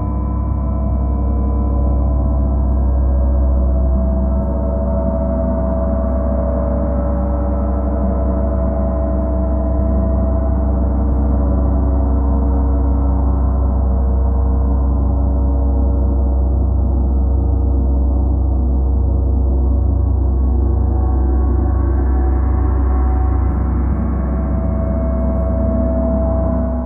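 Several large suspended gongs played continuously with soft round-headed mallets, building a dense, sustained wash of ringing tones over a deep hum. The sound swells brighter a few seconds before the end.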